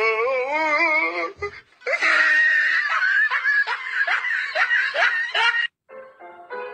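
A person laughing in high-pitched giggles, opening with a wavering drawn-out vocal sound. After a brief silence near the end, background music begins.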